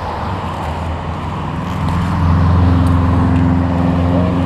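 Road traffic: a motor vehicle's engine running close by with a steady low hum, growing louder about two seconds in.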